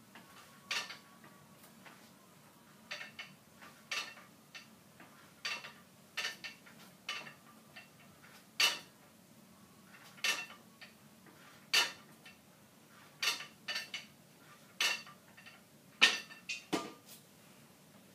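Metal weights of a home-gym leg press machine clinking as the legs push out and let the load back down, a short ringing metallic clank about every second and a half, sometimes two in quick succession.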